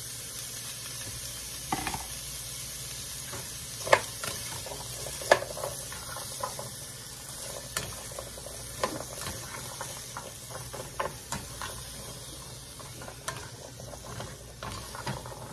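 Chopped onions, celery and carrots sizzling steadily in butter and olive oil as a spatula stirs them, scraping and knocking against the pan every second or so, the sharpest knocks about four and five seconds in.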